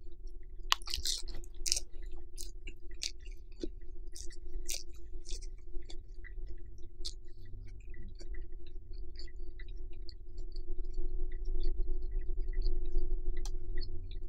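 Close-up chewing of a lettuce wrap of grilled pork, with crisp crunches of the lettuce loudest about one to two seconds in, then softer, wetter chewing. A steady low hum runs underneath.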